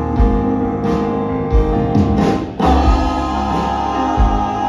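Male gospel vocal quartet singing long held notes in close harmony, with keyboard and band accompaniment underneath; a strong new held note comes in about two and a half seconds in.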